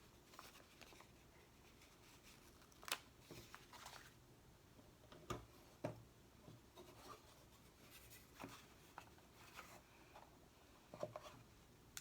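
Quiet, scattered crinkling and soft tapping of stickers and sticker sheets being handled and pressed onto a box, with a few sharper ticks, the loudest about three seconds in.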